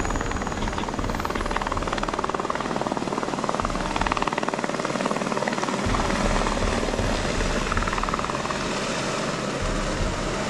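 Firefighting helicopter hovering low over water, its rotor and turbine engine running steadily with a fast, even rotor chop.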